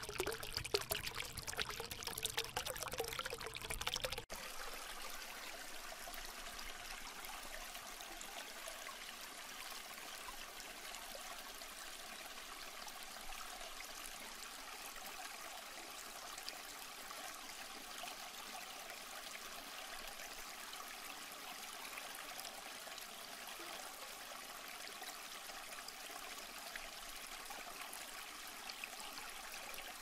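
Crayons scratching back and forth on paper as a drawing is coloured in: a continuous scratchy hiss that turns steadier and slightly quieter about four seconds in.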